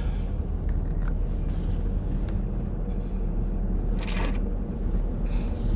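Car driving, heard from inside the cabin: steady low rumble of engine and tyre noise, with a short hiss about four seconds in.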